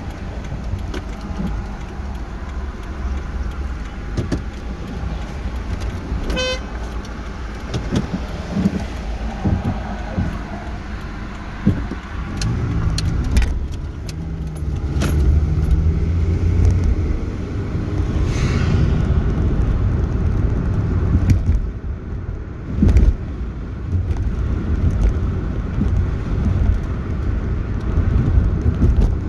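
Car cabin noise while driving: a steady low engine and tyre rumble, with scattered clicks and knocks and one loud thump about three quarters of the way through.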